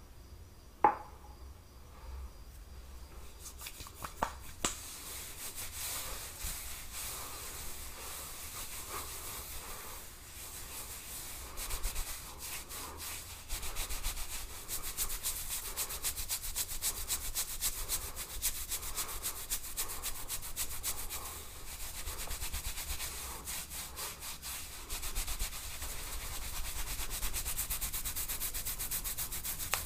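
Fingers rubbing and scratching through hair on a scalp close to the microphone: a continuous scratchy, crackling rustle that starts a few seconds in and grows denser. A sharp click sounds about a second in.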